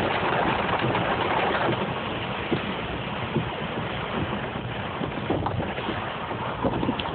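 Heavy rain pelting a moving Jeep, heard from inside the cab as a steady dense hiss mixed with wet-road tyre noise, with a few sharp taps.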